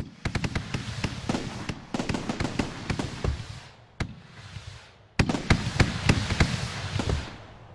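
Fireworks sound effects from a fireworks display simulation: quick volleys of sharp pops and bangs, with a new volley about two seconds in and a louder one a little after five seconds. Each volley dies away, and the firing fades out near the end.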